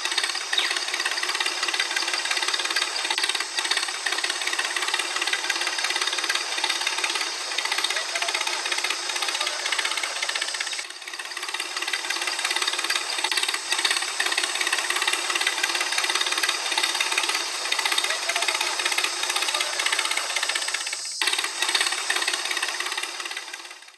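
A small motor running steadily with a continuous rattling whir and no deep bass.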